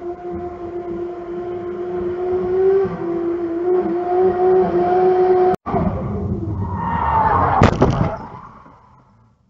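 Holden VL Commodore Turbo's turbocharged 3.0-litre straight-six held at high revs for a burnout, a steady high engine note for about five and a half seconds. After a brief dropout come tyre squeal and engine noise, then a loud bang about two seconds later as the car crashes. The sound dies away near the end.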